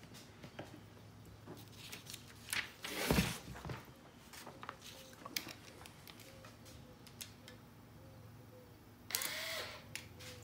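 Scattered clicks and knocks of a small cordless impact and intake-manifold bolts being handled, with a thump about three seconds in. Near the end, a brief run of the cordless impact spinning a bolt down, only snugging it.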